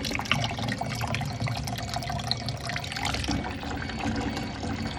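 Water pouring and splashing steadily as a bucket is emptied into a small pond.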